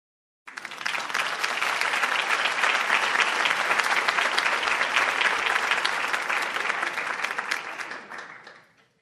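Audience applause, dense clapping from many hands. It starts abruptly about half a second in, holds steady, and fades away near the end.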